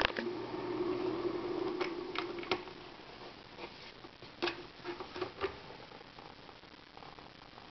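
Small LED mood-light humidifier running with a steady low hum that fades out about three seconds in. Several light plastic clicks and knocks follow as its cover is handled and lifted.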